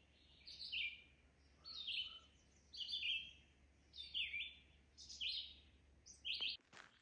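A songbird calling over and over: a short phrase of two or three notes stepping down in pitch, repeated roughly once a second.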